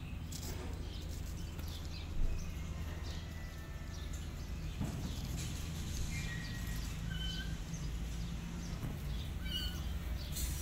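Outdoor ambience: a steady low hum, with a few short, high bird chirps in the second half and a single thump about two seconds in.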